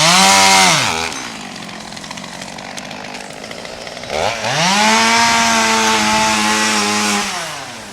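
Gas chainsaw revving up to full speed and dropping back to idle twice: a short burst at the start, then a longer run of about three seconds from about four seconds in.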